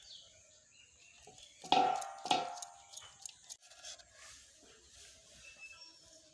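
Aluminium bowl and knife knocking against a steel plate: two loud clanks with a short metallic ring about two seconds in, followed by a few lighter taps.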